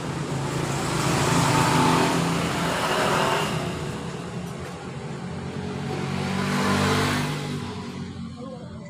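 Engine noise from passing road vehicles, swelling and fading twice: loudest about two seconds in and again around seven seconds, dying away near the end.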